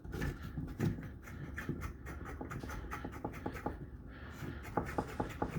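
Many small, irregular clicks and scrapes as an old faucet's mounting ring, just knocked loose, is worked off under a bathroom sink.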